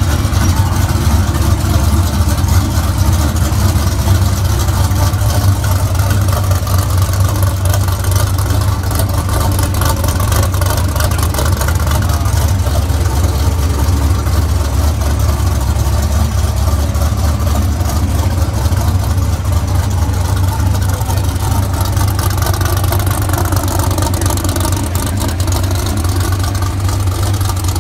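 Ford Raptor pickup's V8 engine idling steadily, a continuous low rumble.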